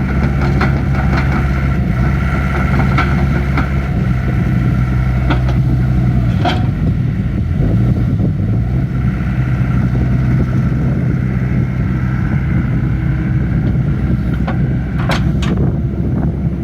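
Yanmar diesel engine of a John Deere compact hydraulic excavator running steadily while the machine is worked, with scattered sharp metallic clanks and knocks. The engine note dips and wavers briefly about six and a half seconds in.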